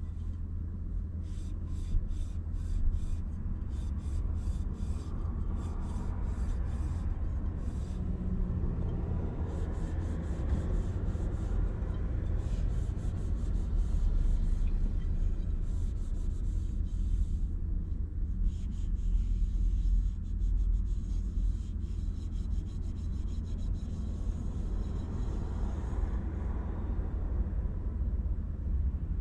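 Runs of quick rubbing strokes, about four a second, as something is wiped with a paper towel, over a steady low rumble.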